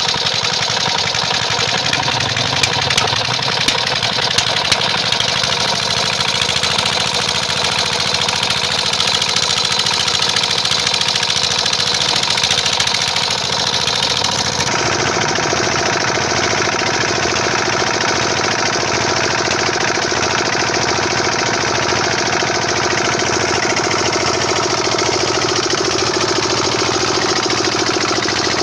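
Small single-cylinder diesel engine running steadily. The sound changes abruptly about fifteen seconds in.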